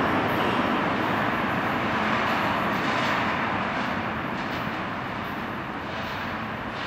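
R160A-1 subway train running away down the tunnel, its steady rumble slowly fading as it goes.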